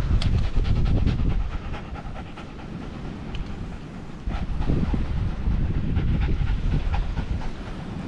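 A small dog panting quickly from the heat, with wind rumbling on the microphone.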